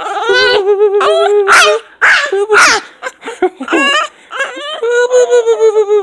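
Japanese Chin dog 'talking': long wavering whine-howls with a warbling pitch, broken into shorter yelping calls in the middle, then one long held call that slides down at the end.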